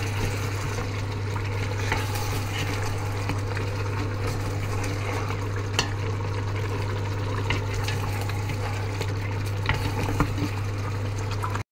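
Goat trotters and thick Greek yogurt sizzling in an Instant Pot's metal inner pot on sauté mode while a wooden spoon stirs them, with occasional light knocks and scrapes of the spoon against the pot, over a steady low hum.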